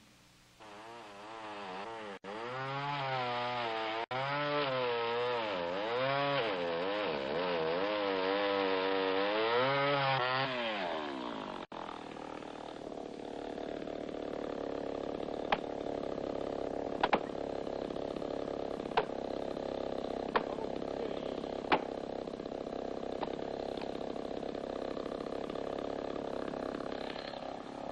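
Two-stroke chainsaw cutting into a large tree trunk, its engine pitch rising and falling as it bogs under load in the cut for about ten seconds. After a short break it runs steadier and lower, while a handful of sharp knocks sound roughly every second and a half.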